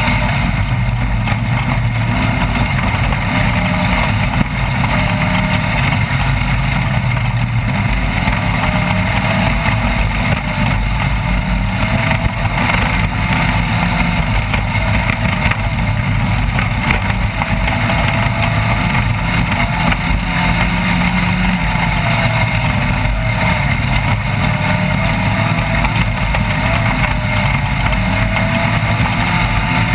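Off-road race vehicle's engine running continuously with its revs rising and falling, under a steady wash of driving noise and small knocks.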